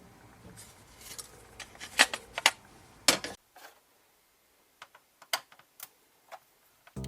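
A series of sharp clicks and clacks from the plastic housing and circuit boards of a keyboard being taken apart, loudest two to three seconds in, then a few fainter clicks. Music comes in at the very end.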